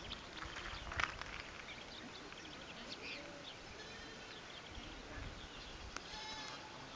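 Birds chirping and calling all around, with a sharp click about a second in and a short harsh call near the end.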